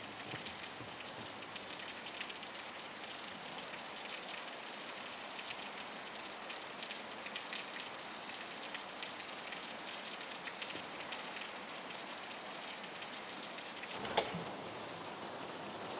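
Steady rain pattering, with a single sharp click about fourteen seconds in.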